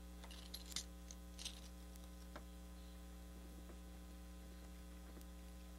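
Faint steady electrical hum, with a few soft clicks and taps in the first couple of seconds as a splining tool's roller presses vinyl spline and screening into the frame's groove.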